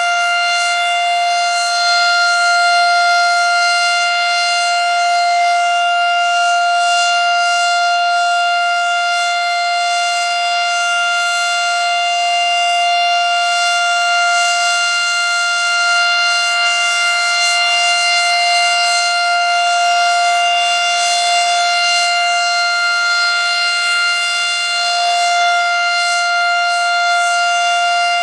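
Federal Signal Model 7 electromechanical siren sounding its steady alert signal, holding one pitch with no rise or fall and only slight swells in loudness.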